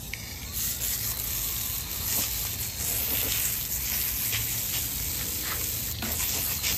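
Water spraying steadily from a garden hose spray nozzle onto a freshly scaled yellowtail snapper, rinsing off the loose scales. The spray strengthens about half a second in.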